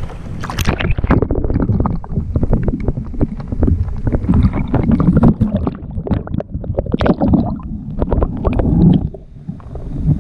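Lake water splashing and gurgling over a GoPro camera as it plunges below the surface. After about a second the sound turns muffled and sloshy, with irregular knocks and bubbling underwater.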